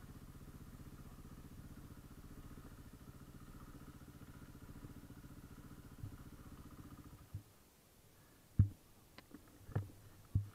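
KTM 450 EXC single-cylinder four-stroke engine idling with an even pulse, then switched off about seven seconds in. After it dies come a few sharp knocks, the first of them the loudest sound heard.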